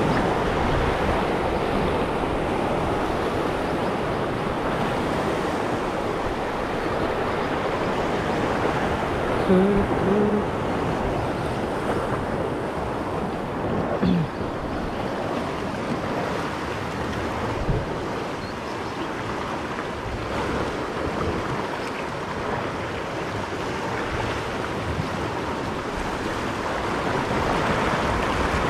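Sea surf washing and breaking over coastal rocks, a steady rush. There are a couple of short low tones about ten seconds in.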